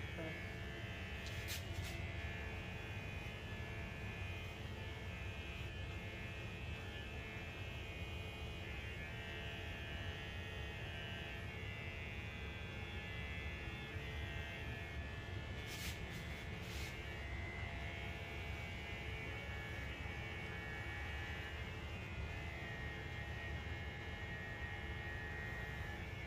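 Electric hair clippers buzzing steadily while cutting hair, with a few brief clicks.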